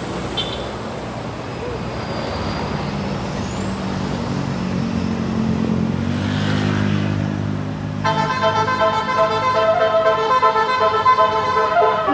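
Tour bus engine running under road noise, its pitch rising midway. About eight seconds in, the bus's Basuri telolet horn starts up: a loud many-toned horn, pulsing in level several times a second.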